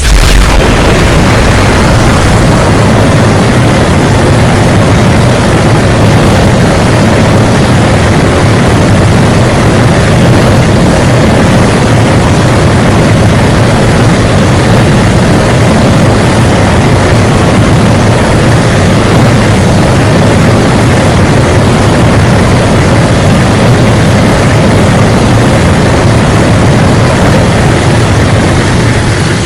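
Loud, steady sound effect of dense rumbling noise with no clear pitch, like a jet engine or a huge blast held on. It keeps the same level throughout and fades out quickly at the very end.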